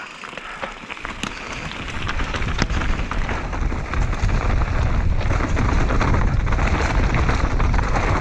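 Mountain bike riding fast down dirt-and-stone singletrack: tyres crunching over the ground with many small clicks and rattles from the bike, and wind buffeting the microphone as a low rumble. It grows louder over the first two or three seconds as speed builds, then holds steady.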